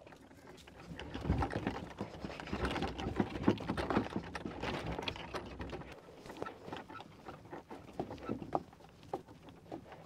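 Bullock cart drawn by an ox along a dirt track: the wooden cart rattling and its wheels rumbling, mixed with the ox's hoof steps. About six seconds in the rumble drops away, leaving quieter, spaced hoof steps and knocks.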